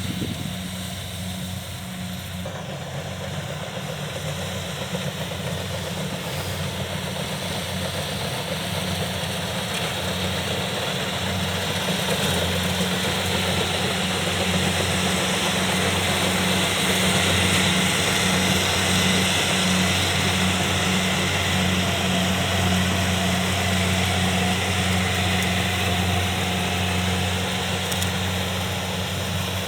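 Kubota DC70 rice combine harvester's diesel engine running steadily under load while harvesting, with the clatter of its threshing machinery. It grows louder toward the middle as the machine comes nearer.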